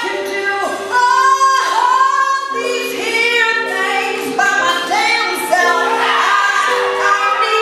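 A woman singing live into a microphone over sustained held accompaniment chords.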